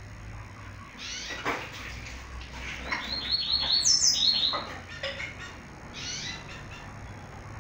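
Caged seedeaters (papa-capim / coleiro) chirping and calling. Scattered chirps give way, about three seconds in, to a quick run of short falling notes with a few higher notes among them. This run is the loudest part, and a few more chirps follow near the end.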